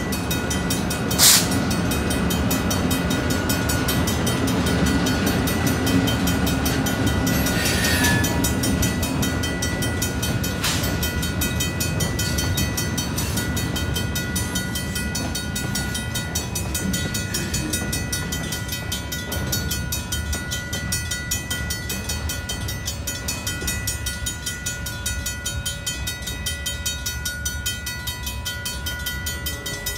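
Railroad crossing's mechanical bells, a Griswold and a Safetran, ringing nonstop. Under them, a Union Pacific train of two GP22T4 diesel locomotives and a loaded flatcar rumbles over the crossing, and the rumble eases in the second half. There is a sharp metallic bang about a second in, and lighter clanks later.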